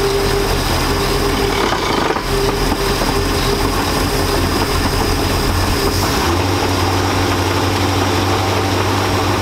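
MerCruiser marine engine idling steadily in an open engine bay. About six seconds in, its low drone shifts in pitch.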